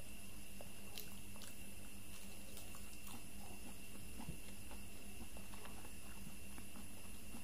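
Faint chewing and mouth sounds from someone eating soft durian flesh, with a few small clicks, over a steady electrical hum.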